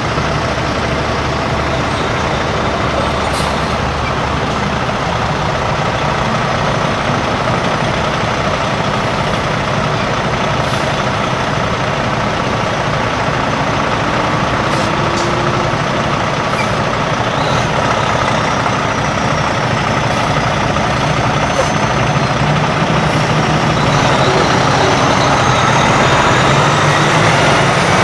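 Tow trucks driving slowly past one after another, a flatbed rollback and then a heavy wrecker: steady engine running and road noise, getting louder near the end as the heavy wrecker goes by.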